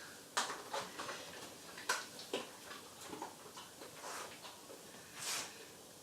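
Scattered light clicks and taps with a couple of soft swishes, irregular and a few per second at most, as a dog works at pulling washing out of a machine and into a basket.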